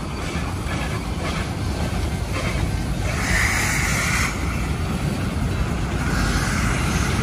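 Puffing Billy narrow-gauge steam train running past, faint exhaust beats over a steady low rumble. A louder hiss comes in about three seconds in and lasts about a second, and a softer one near the end.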